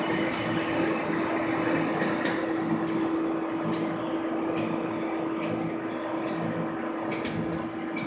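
Plastics extruder running steadily as it pushes out a strand of molten red plastic: a continuous machine hum with a constant low tone and a thin high whine, and a few faint ticks.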